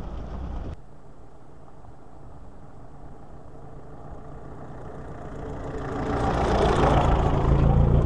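UAZ Bukhanka van's engine running as the van approaches, getting steadily louder from about six seconds in as it drives past close by.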